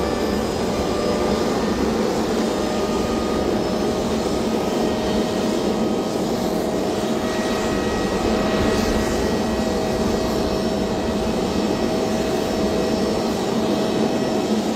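V-22 Osprey tiltrotor aircraft's engines and rotors running with a steady drone, a few faint tones in it drifting slowly in pitch.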